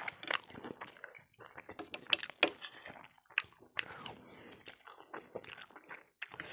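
Close-miked chewing of a mouthful of pork keema noodles, with irregular wet smacks and sharp clicks.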